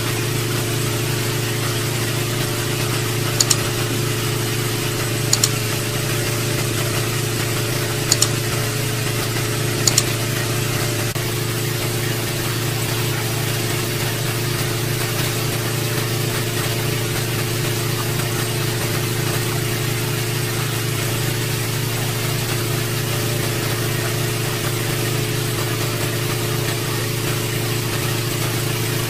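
Small engine-driven water pump running steadily at an even pitch. Four short high double ticks come in the first third.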